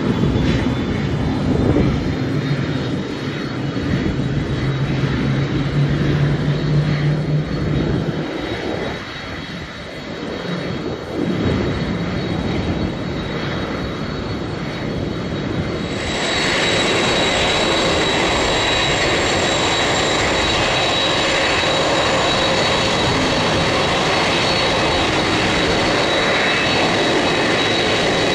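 Boeing 747-400F jet engines running, with a steady high whine. About halfway through the sound changes abruptly to a steadier, fuller, slightly louder engine whine.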